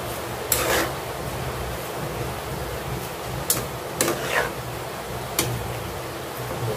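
A cooking spoon stirring vermicelli in a pan, knocking sharply against the pan four times, with a short scrape after two of the knocks, over a steady hiss.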